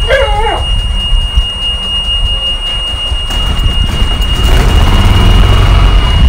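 Wind buffeting the microphone of a phone held out on a moving golf cart, a heavy rumble that grows stronger in the second half, with a thin steady high-pitched whine throughout. A short wavering squeal sounds at the very start.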